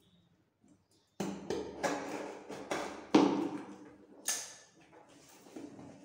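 A cardboard shipping box being handled and opened by hand: an uneven run of scrapes, rustles and knocks starting after about a second, from tape and flaps being pulled and the box knocking on the marble floor.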